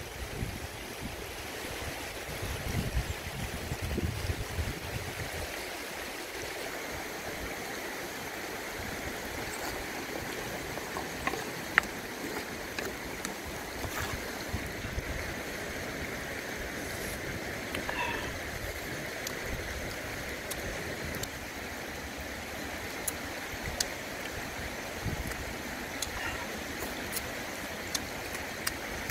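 Shallow river running steadily over rocks, with a few sharp clicks and taps now and then, one loud one about twelve seconds in. Low wind rumbles on the microphone in the first few seconds.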